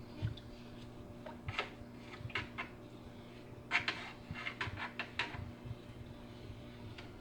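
Blade algae scraper on a telescoping handle scraping aquarium glass in short, irregular strokes, with a dense run of quick strokes around the middle, over a steady low hum.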